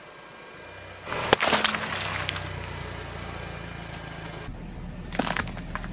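A car tyre rolls onto a whole yellow melon on asphalt, which bursts with one sharp crack about a second and a half in and splits apart in a spray of noise, over the steady low hum of the slowly moving car. Near the end a quick run of crackling crunches starts as another item is crushed.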